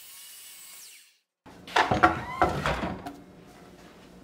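A faint steady whir from the miter saw after cutting the hickory board, which stops abruptly about a second in. Then a quick series of loud wooden knocks and clatters as the cut hickory pieces are moved and set down, loudest about two seconds in.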